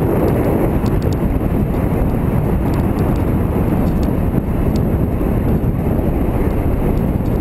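Motorcycle riding at low speed: a steady rumble of engine and wind noise on the on-bike camera's microphone.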